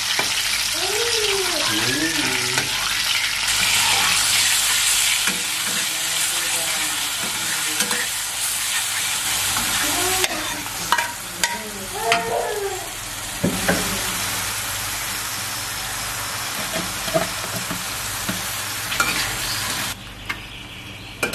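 Garlic, and later genjer leaves, sizzling in hot oil in a frying pan while a spatula stirs, with scattered knocks and scrapes of the spatula against the pan. The sizzle cuts off suddenly about a second before the end.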